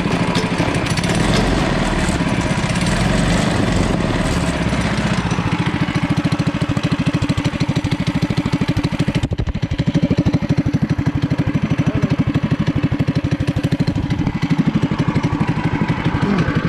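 Predator 212 single-cylinder four-stroke go-kart engine running steadily with an even exhaust beat. It is fitted with a freshly installed aftermarket AGK intake manifold and a Mikuni carburettor.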